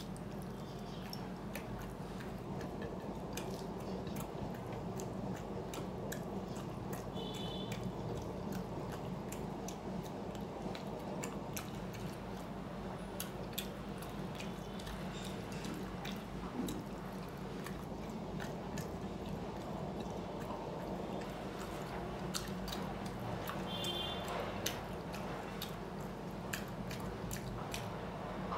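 A person chewing and eating close to the microphone: scattered wet mouth clicks and small smacks over a steady low hum. A brief high chirp sounds twice, about seven seconds in and near the end.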